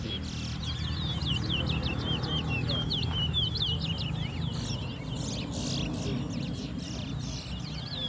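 Caged towa-towa seed finches singing in a song contest: a fast, unbroken string of short, high chirps, many dropping in pitch, over a low murmur of background voices.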